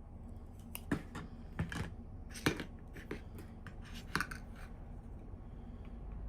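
A run of sharp small clicks and scrapes, about a dozen over three seconds, as of hands handling doll packaging during unboxing. The clicks then stop, leaving a low steady hum.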